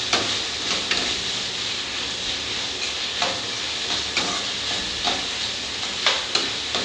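Chopped tomatoes and onion sizzling in oil in a kadai, stirred with a steel spatula that scrapes and taps against the pan several times.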